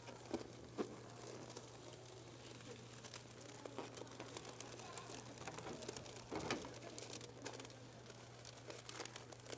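Faint rubbery rubbing and squeaking of inflated balloons being pressed down into a bucket of liquid nitrogen, where they shrink with the cold, with scattered small clicks over a steady low hum.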